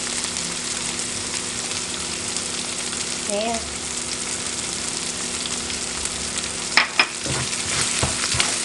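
Sardine, tomato and bell pepper sauce sizzling steadily in a stone-coated frying pan. Near the end come two sharp knocks, then a wooden spatula stirring and scraping through the sauce in quick strokes.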